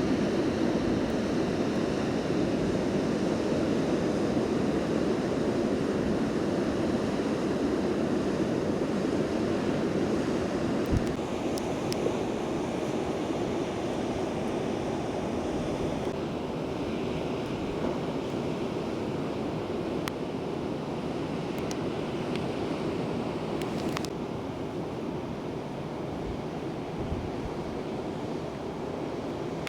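Ocean surf rushing steadily, with wind buffeting the microphone. The character of the rush changes abruptly a few times, and there are a few faint clicks.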